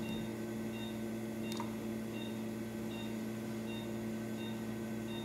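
Operating-room patient monitor beeping at a steady pulse rate, short high beeps about one every three-quarters of a second, over a steady hum of theatre equipment. A single faint click comes about a second and a half in.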